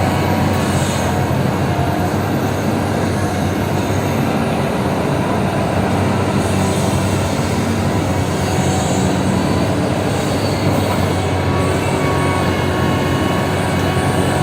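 Large mining excavator running steadily: a deep diesel engine and hydraulic drone with faint high metallic squeals over it.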